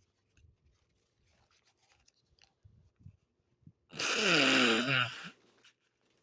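One loud, rough throat sound from a man with a cold, about four seconds in and lasting just over a second, falling in pitch. Otherwise only faint clicks.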